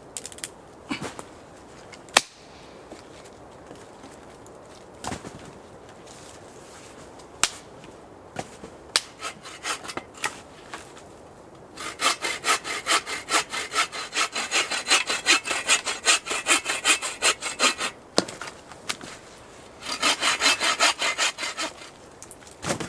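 Hand saw cutting a dead branch for firewood in quick, even back-and-forth strokes: one long run of about six seconds starting near the middle, then a shorter run near the end. Before the sawing, scattered knocks and clicks of wood being handled.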